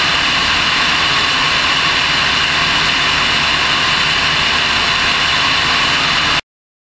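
Pitts aerobatic biplane's piston engine and propeller running steadily in flight, heard from an onboard camera as a continuous engine drone blended with rushing air. The sound cuts off abruptly shortly before the end.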